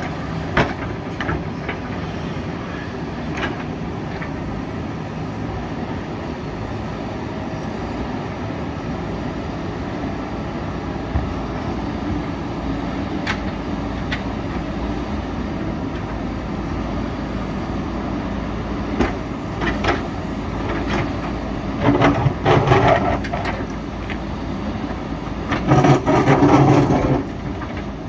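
JCB 3DX backhoe loader's diesel engine running steadily, with scattered sharp knocks of the bucket on rock. Two louder, rougher spells come near the end.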